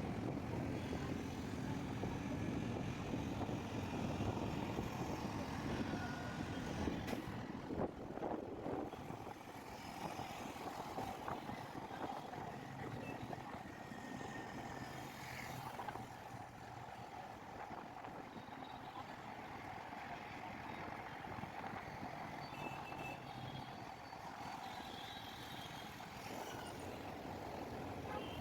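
Road traffic noise: a steady rumble of vehicles, with a few faint short tones.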